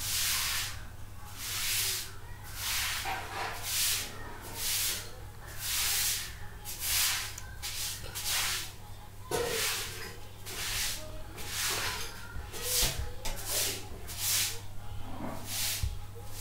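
Rhythmic hissing, one short burst about every second, over a faint steady low hum.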